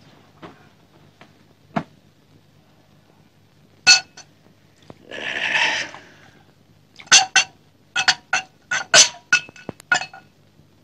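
Glass bottle and drinking glass clinking. A single ringing clink comes about four seconds in, then about a second of pouring liquid, then a quick run of about ten ringing glass-on-glass clinks near the end.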